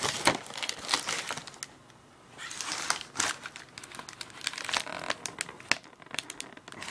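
Bubble wrap and plastic packaging crinkling and crackling as hands rummage through a shipping box and handle a bagged toy package, with a brief lull about two seconds in.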